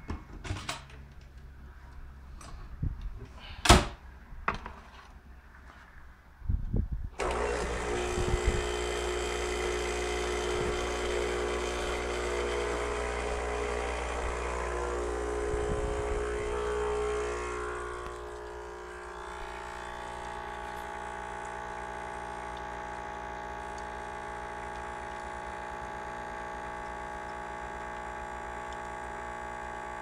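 A few knocks and clicks, then about seven seconds in the Hamilton Beach 40729 espresso maker's pump switches on with a steady hum, pushing water through the ground coffee to brew a shot of espresso. The hum settles lower and quieter about two-thirds of the way through.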